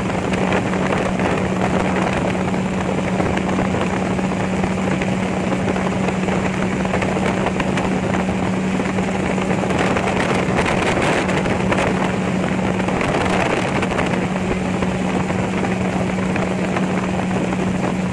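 Gyrocopter in flight: its engine and propeller running at a steady, unchanging drone, mixed with air rushing past the open cockpit.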